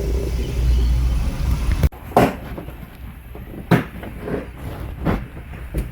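A steady low rumble that cuts off abruptly about two seconds in, then a series of separate knocks and clunks, roughly one a second, from parts and tools being handled during work in a car's engine bay.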